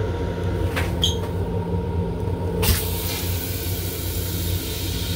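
Flush cycle of an LIRR M7 railcar toilet over the car's steady low rumble: a click and a short high tone about a second in, then about two and a half seconds in the rinse water starts with a sudden, steady hiss.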